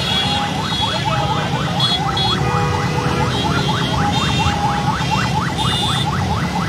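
Siren in rapid yelp mode, a rising sweep repeating about four times a second, over a low rumble of road traffic.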